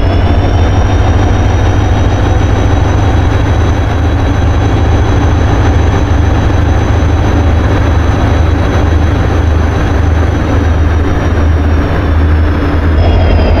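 Train running sound effect: a heavy low rumble with a high whine of several steady tones, which rises at the start and sinks away near the end.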